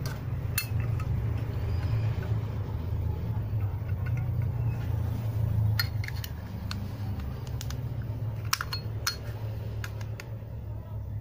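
Scattered sharp metallic clicks and taps from handling a Zippo lighter and its freshly filled insert, over a steady low hum.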